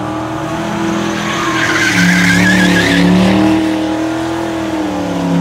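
Car drifting in tight circles around a cone: the engine held at high revs with its pitch wavering as the throttle is worked, under squealing tyres that are loudest about halfway through.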